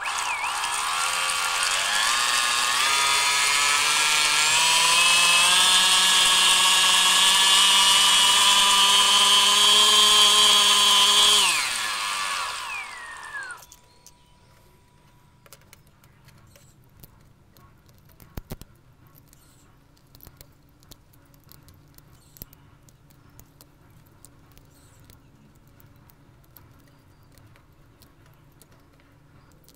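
Small 2215-size 3200 kV brushless motor driving a 3D-printed mini outboard's propeller in water: a high whine rising in pitch over the first few seconds, holding steady, then falling away as the motor spins down about 13 seconds in. After that only faint light taps and clicks of small plastic parts being handled.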